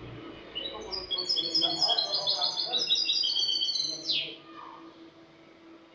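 European goldfinch (Spanish jilguero) singing a phrase of rapid, repeated twittering notes, closed about four seconds in by a quick downward sweep; then the song stops.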